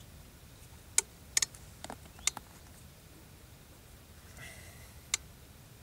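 Small sharp clicks of feeder fishing tackle being handled while the feeder is swapped for a lighter one: a quick cluster between about one and two and a half seconds in, and one more click near the end.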